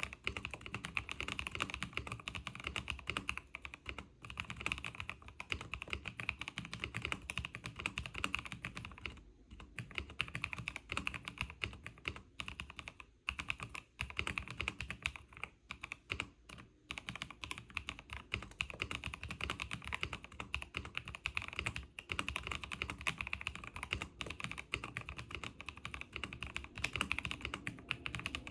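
Fast, continuous typing on a mechanical keyboard, a dense run of key clicks broken by short pauses every few seconds.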